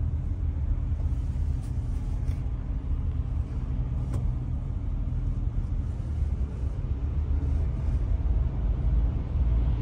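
Steady low road and engine rumble of a car driving slowly, heard from inside the cabin, with a few faint ticks.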